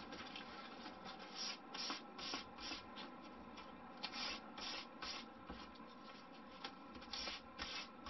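Sandpaper rubbed by hand along the edge of a thin balsa-wood strip, a glider's elevator, rounding the edge. Faint short strokes, about three a second, in runs with brief pauses.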